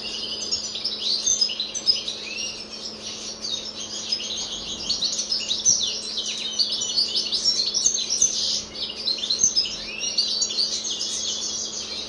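European goldfinch singing: a continuous, fast, twittering song of rapid chirps and short trills, with no real pauses.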